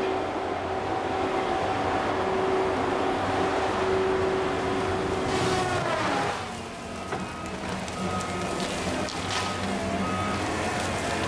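Caterpillar 573C feller buncher working, its C7.1 diesel running with the steady whine of the spinning SH56B hot-saw disc. About five and a half seconds in, the whine drops sharply in pitch with a burst of cracking as the saw cuts into a tree. The machine then runs on, briefly quieter.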